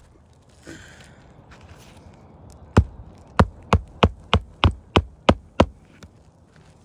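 Hammer driving a roofing nail into an asphalt shingle: nine quick, sharp strikes at about three a second, beginning a little before the middle, after a brief rustle near the start.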